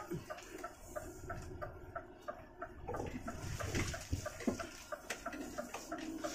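Turn-signal indicator ticking steadily in the cab of a Scania G410 truck, about three short ticks a second, over the low rumble of its 13-litre diesel. A few knocks and rattles come through about three to four and a half seconds in.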